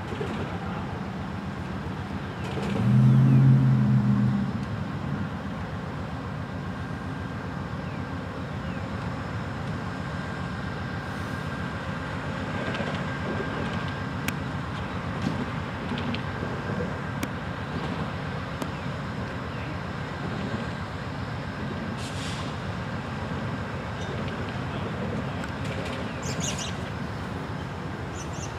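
Amtrak passenger train drawn by a diesel locomotive rolling slowly into a station, a steady low rumble throughout. About three seconds in there is one loud, steady horn blast lasting about two seconds.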